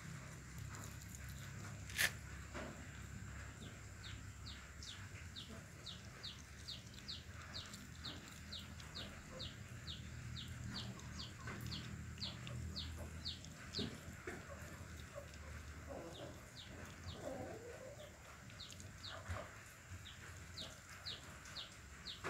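A mongoose chewing and mouthing a piece of fried tofu on a wire-mesh cage floor, with one sharp click about two seconds in. Behind it, a run of short, high, falling chirps repeats about twice a second through most of the middle and again near the end.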